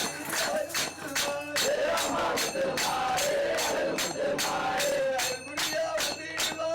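Music with a steady, fast beat of sharp jingling percussion and a chanting voice.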